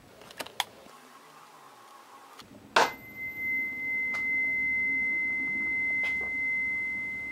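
Police-radar calibration tuning fork (K.E.I., 65 mph X-band) struck once almost three seconds in, then ringing on as one steady high tone. Its pitch stands for the Doppler shift an X-band radar gets from a target at 65 mph, which is how the fork is used to check the radar's speed reading. A few faint handling clicks come before the strike.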